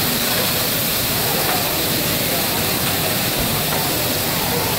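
Food sizzling on a large round Mongolian-grill griddle heated by gas burners: a steady hiss.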